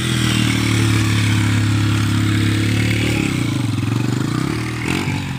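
Dirt bike engine running at a steady pitch, then revving unevenly, its pitch wavering up and down, as the bike rides over a dirt mound about three seconds in. It gets quieter near the end.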